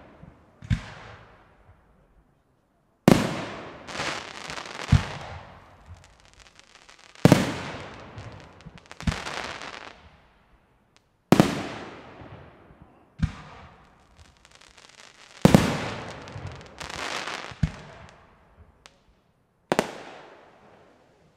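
Aerial fireworks bursting: a sharp bang about every four seconds, each fading away over a second or two, with a smaller second bang a couple of seconds after each.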